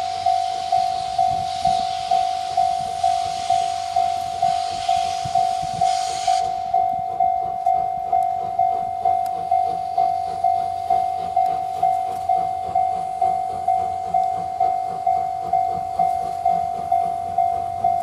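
Japanese level-crossing warning bell ringing its repeated electronic clang, about two strokes a second, without a break. For the first six seconds a steam hiss from the approaching C57 steam locomotive lies over the bell, then cuts off abruptly.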